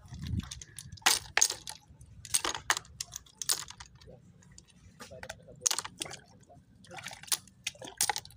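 Small spiral snail shells clicking and clattering against each other and the rock as they are picked by hand and dropped into a bucket of shells. The sharp clicks come irregularly, a few at a time.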